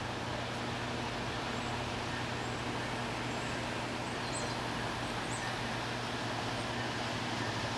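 Steady low drone of a diesel train engine with a constant hum. A couple of faint bird chirps come about four to five seconds in.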